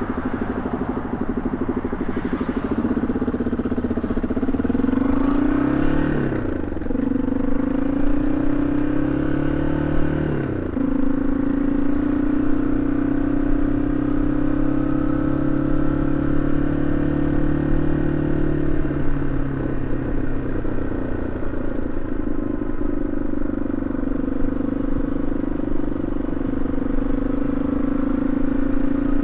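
Yamaha XT225 Serow's single-cylinder four-stroke engine pulling under way. It rises in pitch and drops sharply at two upshifts, about six and ten seconds in, then settles into a steady cruise.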